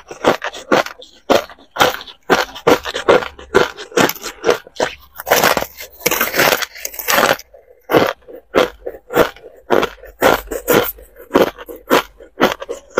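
Hard ice being bitten and chewed: a quick, uneven run of sharp crunches, a few a second, as chunks of frozen ice break between the teeth close to a clip-on microphone.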